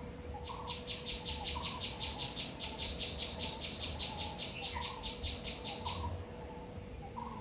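A high, rapid trill of about five pulses a second, lasting about five and a half seconds, with a few short lower calls under it.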